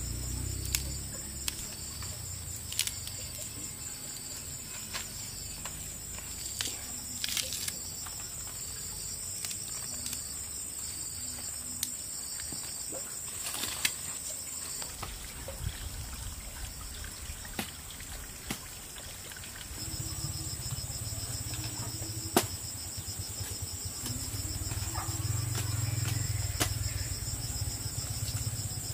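Insects chirping in a steady high-pitched chorus, with scattered sharp clicks and knocks and a low rumble that grows louder about two thirds of the way through.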